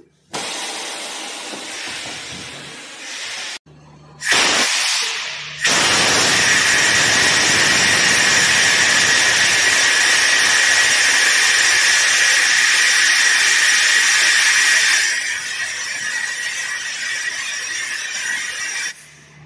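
Compressed air hissing hard out of an LHB coach's emergency brake valve under the coach after the passenger alarm handle has been pulled: the brake pipe is venting to put on emergency braking. The hiss carries a steady whistling tone, drops somewhat about fifteen seconds in, and cuts off suddenly near the end as a hand works the valve.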